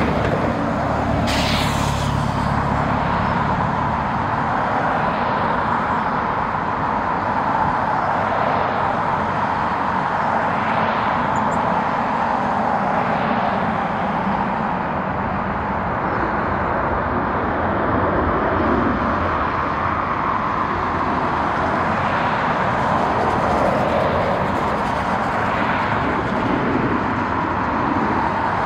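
Jet airliner engines running, a steady rushing noise that swells and eases slowly, with a brief sharp click about a second and a half in.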